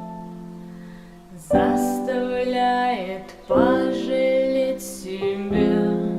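Background song: held piano-like chords, with a voice singing two long phrases about one and a half and three and a half seconds in.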